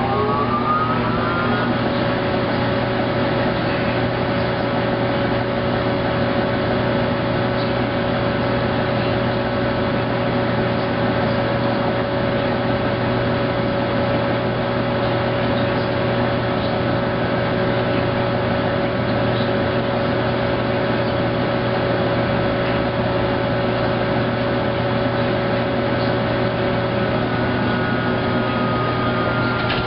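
Maytag SoftMount commercial washer running, with a steady low hum and a motor whine that rises in pitch over the first two seconds, then holds steady. Near the end the whine shifts to a higher tone.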